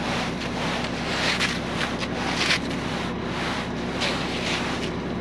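An engine running steadily under rushing, scraping swells of wet concrete being poured and worked, with wind buffeting the microphone.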